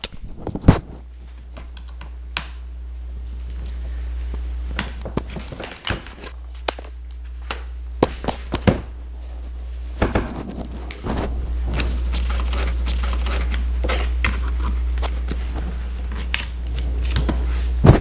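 Scattered light clicks, taps and a few thunks of a screwdriver and fingers working in a laptop's open underside, as the hard drive's single retaining Phillips screw is removed and the drive is pulled out of its bay. A steady low hum runs underneath.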